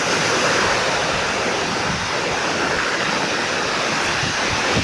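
Storm surf breaking and washing on the shore: a steady, even rush of water with no single crash standing out.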